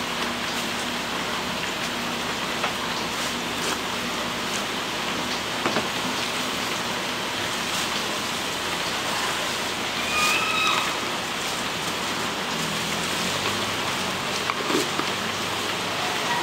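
Steady rain-like hiss with a few light clicks scattered through it, and a brief high tone about ten seconds in.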